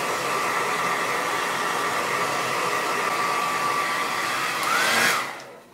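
Handheld hairdryer blowing steadily, then switched off near the end, its sound dying away after a brief rising whine.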